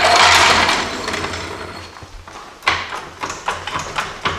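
A steel floor jack rolled across a concrete floor makes a loud rattling scrape that fades over a couple of seconds. About two-thirds of the way in, a quick run of metal clicks and knocks follows as the jack is worked in under the front axle.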